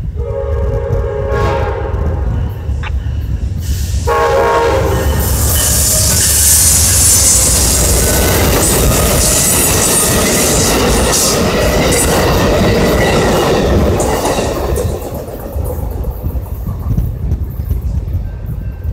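Amtrak passenger train sounding its horn twice as it approaches, then passing close by with a loud rush of wheel and rail noise and clickety-clack that fades away near the end.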